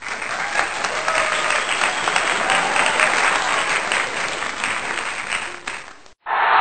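Many people clapping, a dense steady patter. It cuts off suddenly near the end, and louder crowd noise follows straight away.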